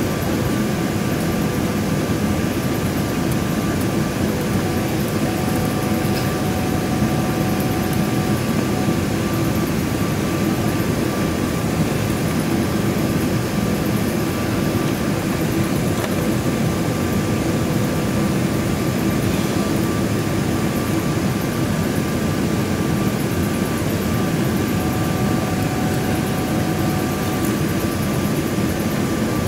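Cabin noise inside a Boeing 777-300ER on approach with flaps extended: a steady rush of engine and airflow noise from its GE90 engines, with a faint steady whine running through it.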